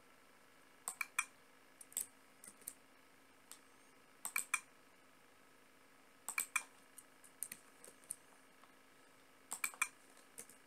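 Computer keyboard keystrokes and clicks in short clusters of two or three, separated by pauses of a second or two, as code is entered. A faint steady hum runs underneath.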